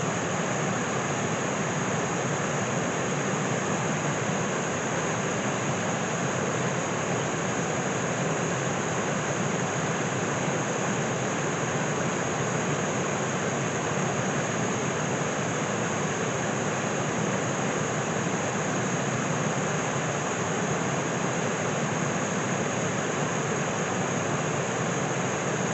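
Steady, unbroken rush of water from a small waterfall on the river.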